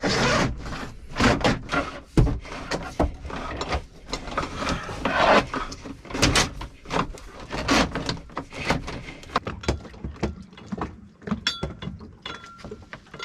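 Irregular knocks, clunks and rattles of gear and hardware being handled and shifted about, with rustling in between.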